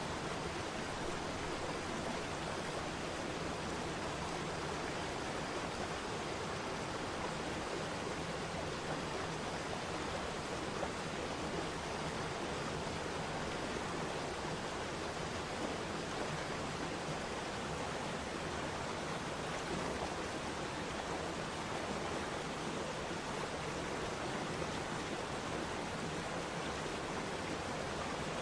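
Waterfall: falling water rushing steadily, with no breaks.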